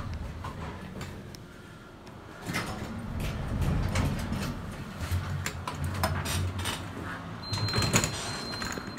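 Elevator doors sliding, with a low rumble and scattered sharp clicks. A thin steady high tone comes in near the end.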